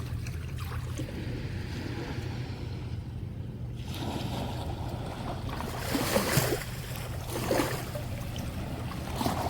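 Ocean waves washing onto the shoreline, a steady surf noise that swells and recedes, with louder surges about six and seven and a half seconds in.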